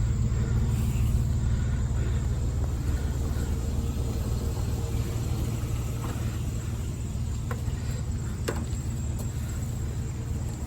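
Motor vehicle running, a steady low rumbling drone with a couple of faint clicks in the second half.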